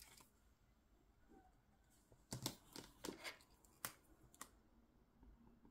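Hands handling cash and paper on a table: a handful of soft clicks and rustles, bunched between about two and four and a half seconds in, with faint room tone around them.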